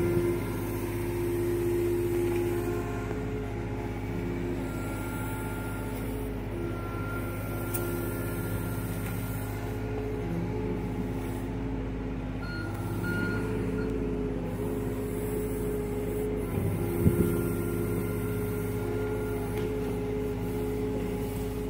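John Deere mini excavator's diesel engine running steadily under load while its hydraulics work the bucket, pulling soil back into the trench, with whining tones that come and go. Two sharp knocks about 17 seconds in.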